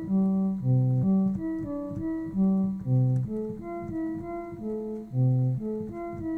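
Homemade additive synthesizer playing a cello-like patch with reverb added: a melodic line of bowed-string-like notes that changes about every half second, with a loud deep note coming back about every two and a half seconds.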